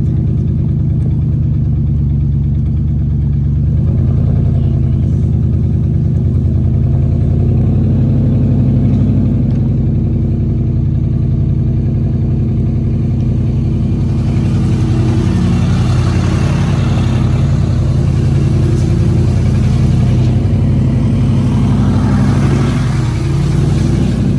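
A vehicle engine running steadily at low revs while the vehicle creeps along. From about fourteen seconds in, a broad rushing noise joins it.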